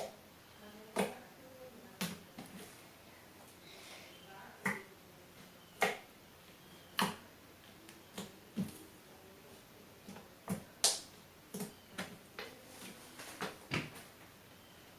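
Homemade pearlescent slime being squeezed and played with by hand, giving sharp little pops and clicks at an irregular pace, roughly one a second.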